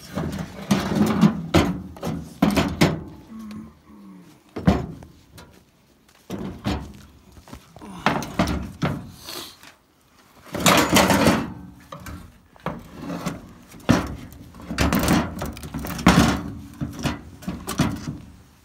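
Round file rasping across the cutters of a Stihl chainsaw chain in irregular runs of strokes, with knocks as the chain and bar are handled.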